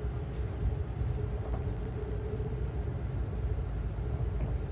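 Amtrak Northeast Regional passenger train running at speed, heard from inside the coach: a steady low rumble with a faint steady hum above it.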